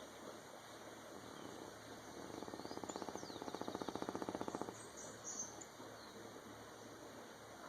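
Snoring: one fluttering snore with rapid, even pulses starts about two seconds in and lasts about two and a half seconds. Faint high chirps come a little after it.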